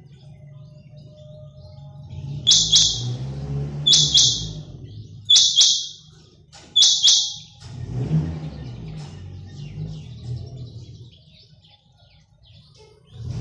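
Caged quail (batair) calling: four loud, sharp high calls about a second and a half apart, each a quick double note, over a low rumble in the background.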